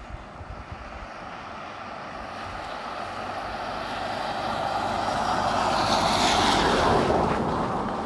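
A car driving past on a wet road, its tyres hissing on the wet tarmac. The sound swells steadily as it approaches, is loudest about six to seven seconds in as it goes by, then fades.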